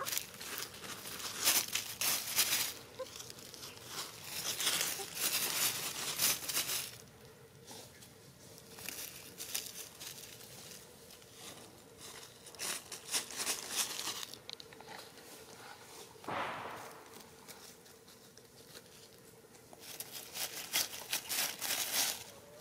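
Dry fallen leaves rustling and crunching in irregular bursts as a hen scratches and forages through the leaf litter.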